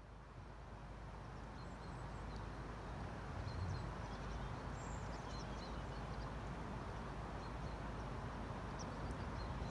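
Lakeshore outdoor ambience: a steady low rush with faint, scattered bird chirps, fading up over the first couple of seconds.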